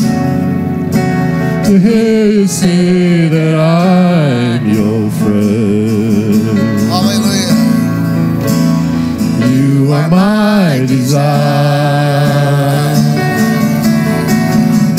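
Live worship band playing a slow song on guitars, keyboard and drums, with a sung melody rising and falling over a steady held chord.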